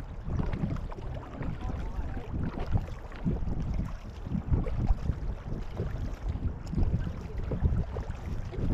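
Multi-person canoe being paddled: irregular paddle strokes and water moving along the hull, with wind rumbling on the microphone.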